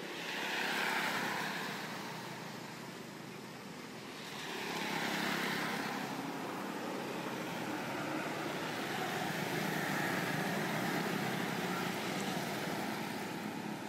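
Road traffic: motor vehicles passing, the noise swelling and fading about three times.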